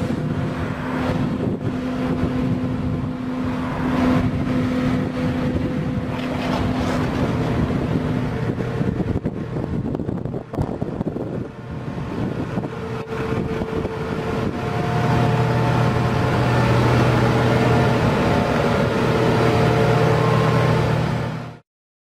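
Diesel engines of asphalt road rollers running steadily. First comes a Hamm tandem drum roller; after a cut about ten seconds in, a pneumatic-tyred roller follows, its lower engine note strengthening partway through. The sound cuts off just before the end.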